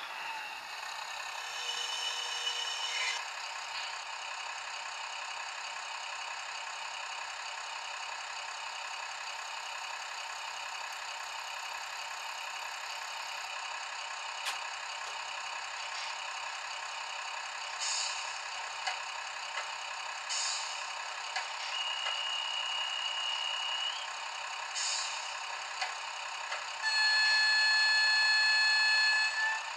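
Model railbus sound: a diesel engine idling steadily, with a few short hisses. Near the end a horn sounds one held chord for about three seconds, the loudest thing here.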